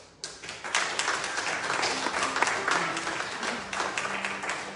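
Congregation applauding: a dense patter of many people clapping that starts abruptly a fraction of a second in and keeps up at a steady level.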